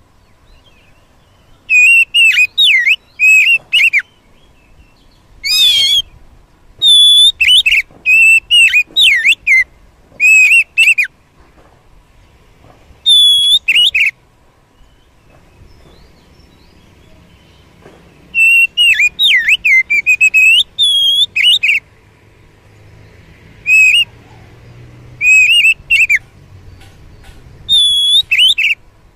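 Oriental magpie-robin singing: phrases of clear, loud whistled notes that slide up and down, given in bursts of one to three seconds with short pauses between.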